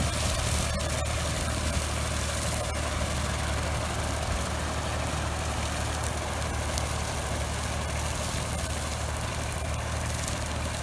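Fordson tractor engine running steadily while it drives a PTO slasher mower across a paddock at slow pace.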